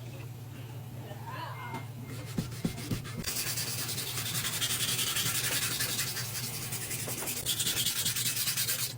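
Knife blade being sharpened: steel rubbing against an abrasive in a continuous grinding hiss that starts about three seconds in, after a few light knocks.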